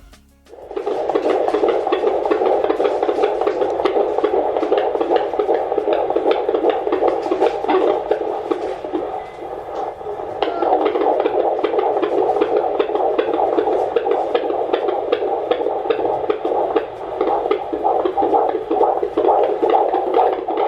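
Fetal heartbeat picked up by a Doppler monitor and heard through its speaker: a rapid, regular pulsing swish at about 140 beats a minute. It starts abruptly just under a second in.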